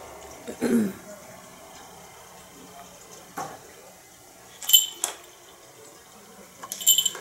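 Small bell on a cat's collar jingling briefly twice, about two-thirds of the way in and again near the end, as the cat moves its head over a toy.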